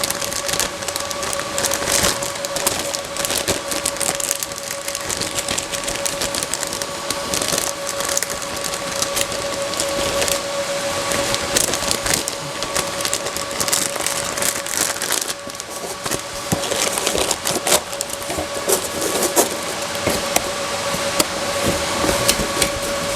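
Continuous crackling, crinkling and clicking from parts and packaging being handled, over a steady two-note hum.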